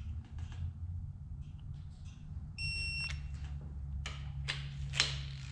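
An electronic torque wrench beeps once for about half a second, the signal that a cylinder-head bolt has reached its set torque. Sharp metallic clicks and knocks of the wrench and socket follow near the end, over a low steady hum.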